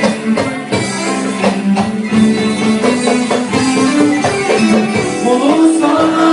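A Turkish pop song playing: band music with a steady percussion beat under a held melody line.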